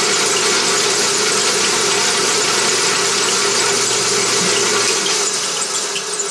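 Drill press running steadily, its spindle turning at about 530 RPM with a Starrett revolution counter's tip held in the spindle's center hole. About five seconds in, a lower part of the hum drops out as the counter is pulled off the spindle.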